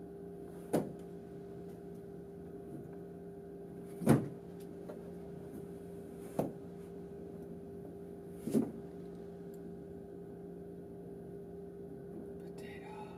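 Four separate thumps of hands landing on a tabletop, the second the loudest, over a steady low electrical hum.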